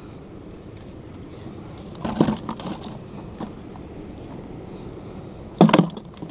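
Fish and ice clattering in a plastic cooler as a hand digs through them, over a steady background hiss. One burst of clatter comes about two seconds in, and a sharper, louder one comes near the end.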